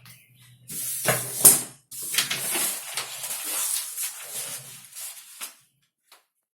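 Paper and cut fabric pieces being handled and laid onto a stack of paper: rustling, with two knocks about a second in, stopping shortly before the end.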